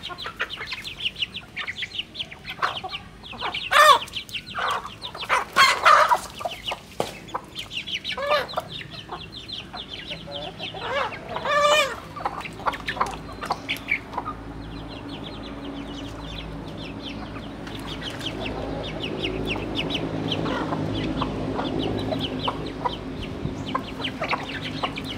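Chickens clucking as they feed, with a few loud clucks in the first half over a busy patter of quick ticks. A low hum builds up in the second half.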